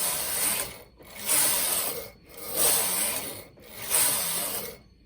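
Domestic knitting machine carriage pushed back and forth across the needle bed, knitting rows: four swishing, ratcheting passes of about a second each with short breaks between.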